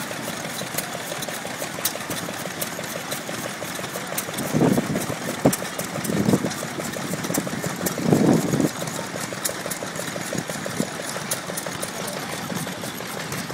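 Old steam engines running steadily, a busy mechanical sound with rapid fine ticking and three louder bursts near the middle.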